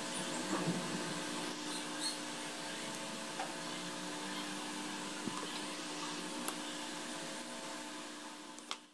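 A steady hum with a few faint, light clicks of small wooden parts being handled and fitted together. It drops away abruptly near the end.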